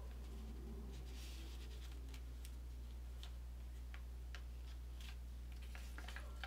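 Origami paper being handled and creased by fingers: scattered faint ticks and crinkles, with a brief rustle about a second in, over a steady low hum.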